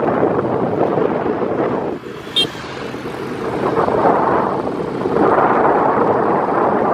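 Wind and road noise from a moving vehicle on the road, with a dip about two seconds in, a brief high-pitched sound just after, then a swell again.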